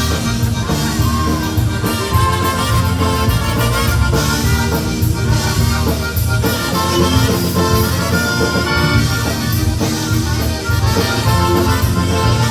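Live polka band playing an instrumental passage, with the accordion to the fore over bass and a steady drum beat.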